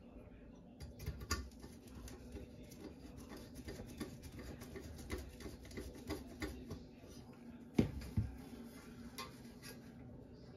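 Small clicks, taps and rustles of gloved hands handling a furnace hot surface igniter and its wires, with two sharper knocks close together about eight seconds in. A steady low hum runs underneath.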